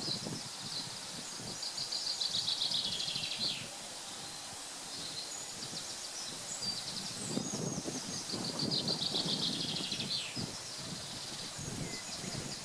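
A songbird singing two phrases, each a fast run of repeated notes that falls in pitch and lasts two to three seconds, the second about six seconds after the first, over steady outdoor background noise.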